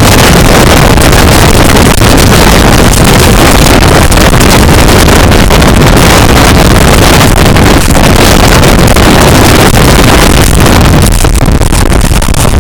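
Express passenger train running past at high speed: a loud, steady rushing of wheels on rails, with wind battering the microphone. It eases slightly near the end.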